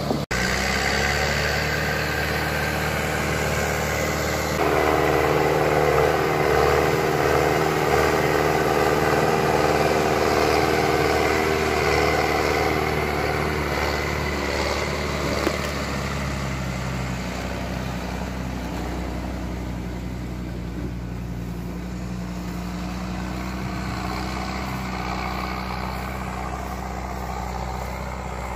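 Forestry skidder's diesel engine running steadily as it drags a bundle of logs on its cable. It gets louder about four and a half seconds in and eases off after about fifteen seconds.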